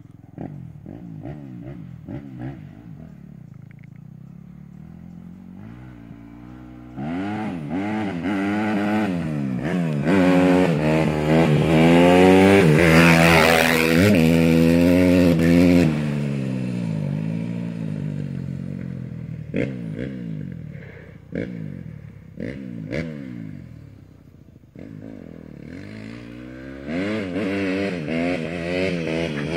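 Small motorcycle engine revving up and down repeatedly as it rides past. It is loudest about halfway through, fades as the bike moves off, and grows louder again near the end.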